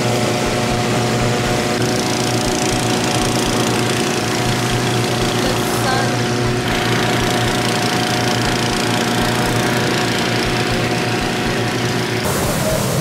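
An engine running steadily at a constant speed, stopping suddenly near the end.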